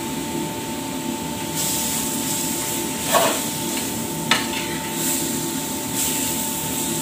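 Metal spoon stirring and scraping beef and spice paste in a stainless steel frying pan, with a frying sizzle coming up about a second and a half in. A sharp clink of spoon on pan a little past the middle.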